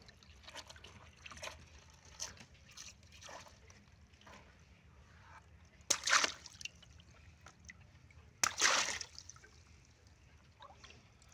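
Water balloons squeezed in a tub of water until they burst. There is a loud pop and splash about six seconds in and a second loud splash about two and a half seconds later, with smaller sloshing and dripping of water between.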